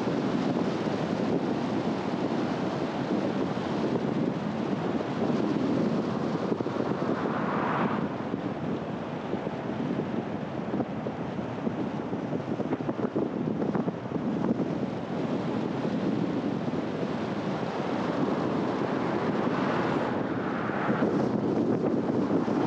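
Steady road and wind noise of a car driving, a constant rush of tyres and air. The hiss swells briefly about eight seconds in and again near the end.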